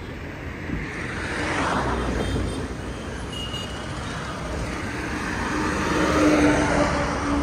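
Road traffic going by: engine and tyre noise swells as vehicles pass. In the last couple of seconds a car's engine note grows louder as a BMW Z4 roadster approaches.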